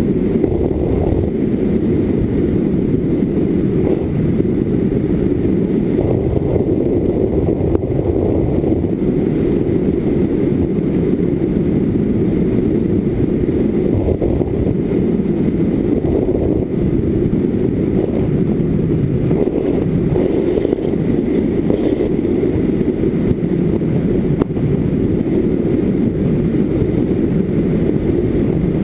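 Steady, muffled rush of wind and electric motor and propeller noise picked up by the camera riding on a foam FPV flying wing in flight.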